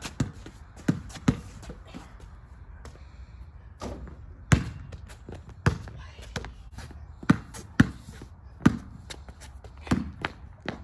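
Basketball bouncing on an asphalt driveway as it is dribbled: a string of sharp thuds at an uneven pace, with a pause of a couple of seconds near the start.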